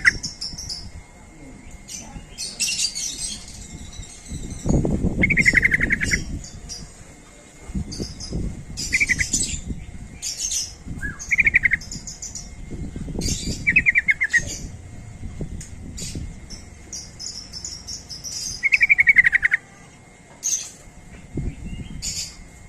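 Yellow-vented bulbul (trucuk) calling: short bubbling trills repeated every few seconds, with higher chirping notes between them and a low rumbling noise under some of the trills.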